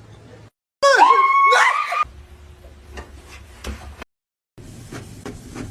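A dog gives a loud, whining yelp lasting about a second, its pitch bending up and down, followed by fainter scattered taps and clicks.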